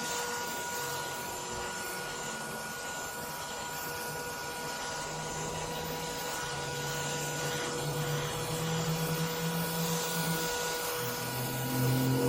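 Leaf blower running steadily, blowing standing water off a freshly pressure-washed concrete sidewalk; its whine holds steady while its lower drone shifts up and down in pitch.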